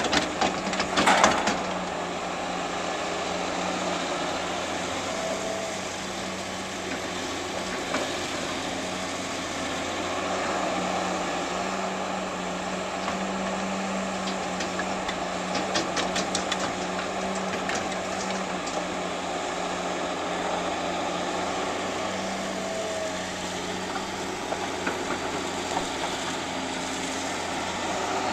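Diesel engine of heavy demolition equipment running steadily, with sharp knocks about a second in and a run of clicks about halfway through.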